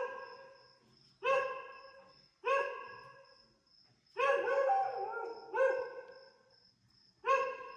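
A dog barking repeatedly in single barks, about every second and a half, with a longer string of barks in the middle. A faint steady high-pitched tone runs underneath.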